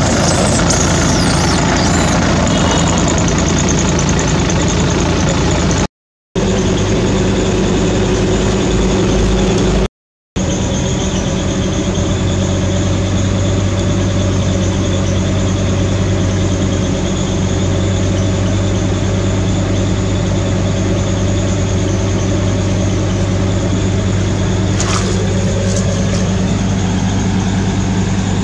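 A motor engine running steadily at idle, a loud, even hum. The sound cuts out briefly twice, in the first half.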